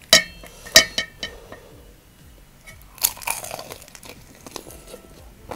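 Two sharp clinks of tableware near the start, then a crunchy bite into fried chicken about three seconds in, followed by a softer crackle of chewing.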